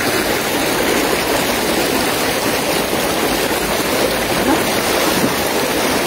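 Steady rush of shallow, fast-flowing river water swirling around a person's legs as he wades through it.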